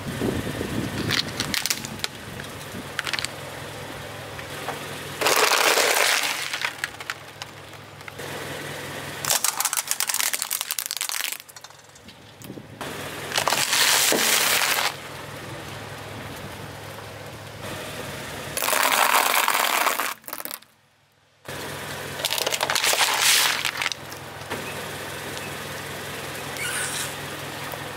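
Car tyre rolling over and crushing toys and a snack tube, with the car's engine idling: several loud crackling, crunching bursts lasting a second or two each, over a steady low engine hum that cuts out briefly about twenty seconds in.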